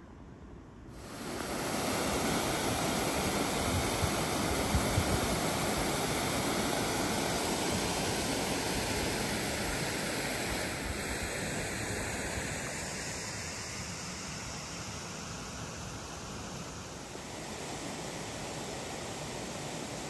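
Steady rushing of wind and water on the open estuary, starting abruptly about a second in, with a gusty low rumble, and easing slightly in the second half.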